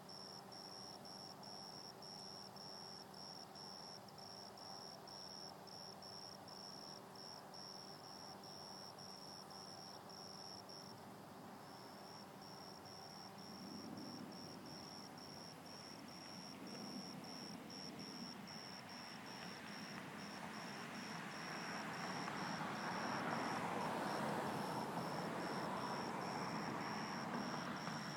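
Crickets chirping, a high thin note repeated about twice a second without pause. About halfway through, a broad noise swells in under it and becomes the loudest sound near the end.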